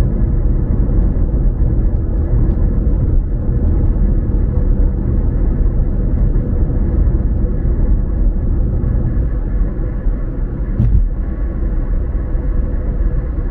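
Car driving at a steady pace, heard from inside the cabin: a steady low rumble of engine and road noise, with one brief click about eleven seconds in.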